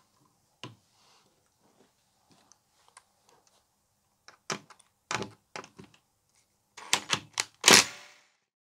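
Cordless drill driving screws into a TV's metal back panel in short bursts, with clicks and knocks between them. The bursts come thicker and louder from about halfway through, and the longest, loudest one comes near the end.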